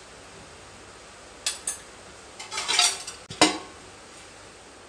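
Stainless steel kitchenware clinking as a steel lid is set over a steel bowl: two light clinks, a short scraping clatter, then one sharp clank, the loudest.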